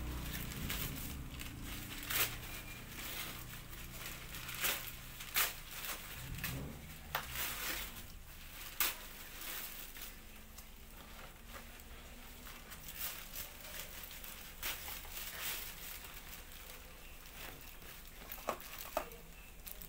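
Plastic bags and paper wrapping crinkling and rustling in irregular bursts as they are pulled and torn away by hand, with a few sharper crackles.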